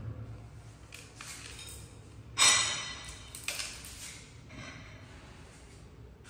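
A baby monkey eating sunflower seeds: a few sudden sharp sounds, about one, two and a half and three and a half seconds in, the one about two and a half seconds in the loudest and ringing briefly.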